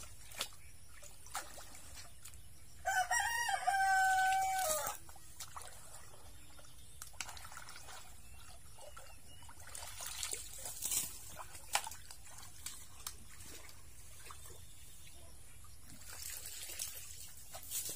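A rooster crows once, a single held call of about two seconds a few seconds in. Around it are scattered splashes and scrapes of shovels working mud in a shallow, water-filled drainage ditch.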